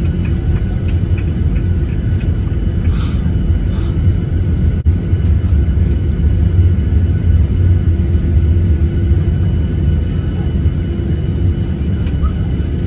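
Steady low rumble of airliner cabin noise, with one brief click about five seconds in.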